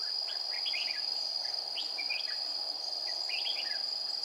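A steady high-pitched insect drone, with several short runs of chirping calls from red-whiskered bulbuls at a trap cage.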